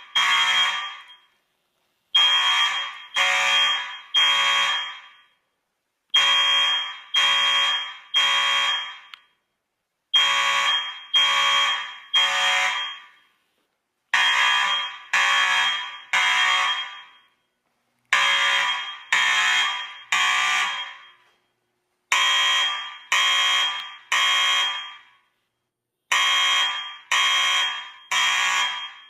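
Fire alarm sounding the temporal-three evacuation pattern after being pulled: three tones a second apart, each starting sharply and fading out, the group repeating every four seconds.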